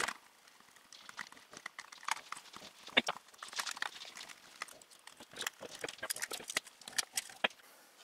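Irregular light clicks and ticks of a precision screwdriver turning small screws out of a plastic headset earcup, with the plastic shell being handled; one sharper click about three seconds in.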